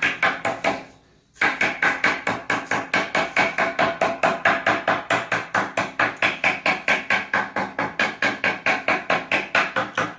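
Rapid, even hammering, about five strikes a second, each strike ringing at the same pitch. It pauses briefly about a second in, then keeps going and stops suddenly near the end.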